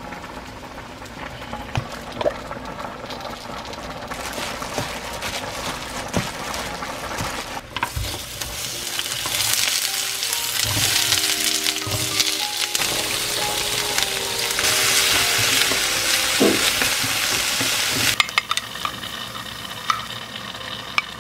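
Sliced onion and zucchini stir-frying in a nonstick frying pan. The sizzle builds from about four seconds in, is loudest in the middle and drops off sharply near the end, with a few clicks of the spatula against the pan.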